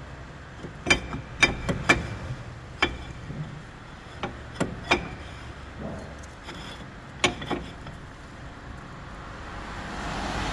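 A run of sharp, irregular knocks, several close together in the first few seconds and a couple more later, over a steady low background hum.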